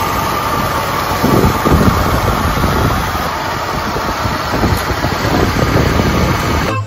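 1979 Lincoln Mark V's 6.6-litre V8 idling steadily.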